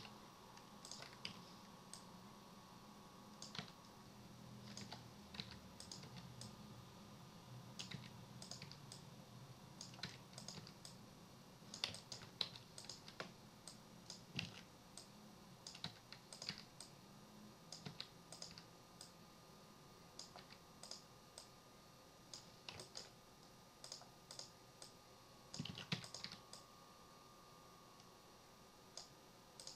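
Faint, irregular clicks of a computer keyboard and mouse, a few taps at a time, over a low steady hum.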